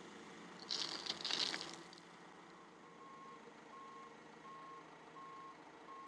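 Backup alarm of a John Deere backhoe loader beeping evenly, one beep about every three-quarters of a second, starting about halfway through, over the faint hum of the machine. A brief hiss comes about a second in.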